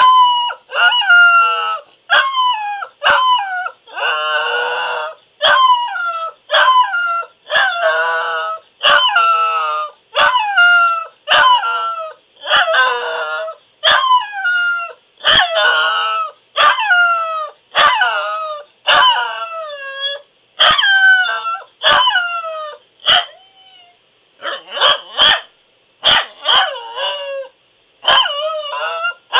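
Pembroke Welsh Corgi howling: a long run of short howls, about one a second, each sliding down in pitch.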